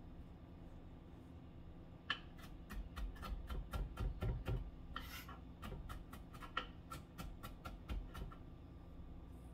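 Kitchen knife dicing a green bell pepper on a plastic cutting board: quick taps of the blade on the board, about four a second, starting about two seconds in and stopping near the end, over a steady low hum.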